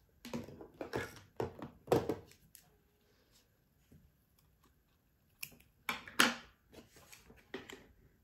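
Rustling and scraping of a thick braided cord handled against its cardboard form, in several short bursts, with scissors snipping through the cord.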